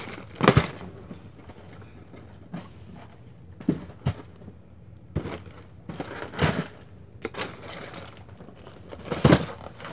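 Cardboard snack boxes and plastic-wrapped snack packs being handled, moved and set down on a stack: a string of irregular knocks and crinkles, the loudest about half a second in and near the end.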